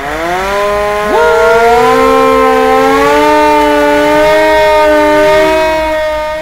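Fire engine siren winding up in pitch over about the first second, then holding a loud, steady wail of several tones that fades away near the end.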